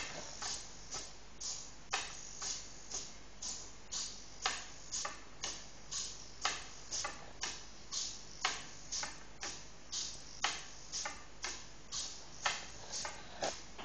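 Small servo-driven hexapod robot walking on a hard tabletop: its servos and wire legs make short clicks and taps in a steady gait rhythm of about two a second, with a stronger click about every two seconds.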